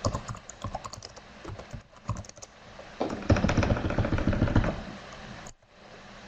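Computer keyboard typing: a string of keystroke clicks, with a quicker, louder run of keys about three seconds in.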